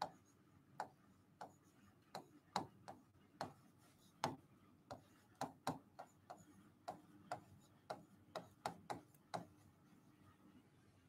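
Pen tip tapping and clicking on the screen of an interactive writing board as words are written by hand: faint, irregular clicks, about two or three a second, that stop near the end.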